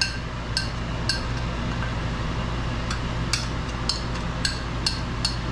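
Metal spoon clinking and tapping against a glass dish and a small steel pot, a dozen or so sharp irregular taps, as spices are spooned into hot oil.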